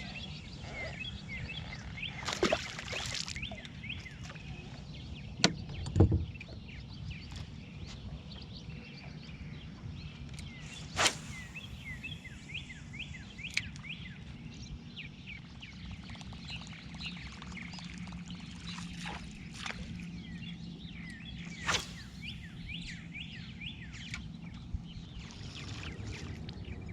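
Birds chirping over and over in the background over a low steady hum, with a few sharp knocks and clicks scattered through, the loudest about six seconds in.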